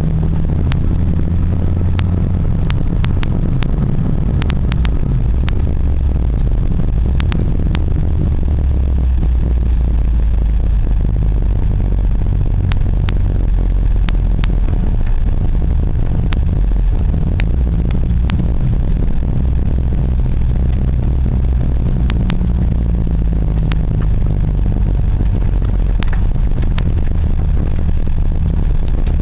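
Car engine running loudly, its pitch stepping up and down as it is driven through the revs, with scattered sharp knocks and rattles.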